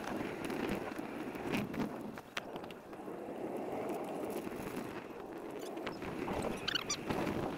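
Riding noise of a bicycle on a paved street: a steady rush of tyre and wind noise with a few sharp clicks and rattles.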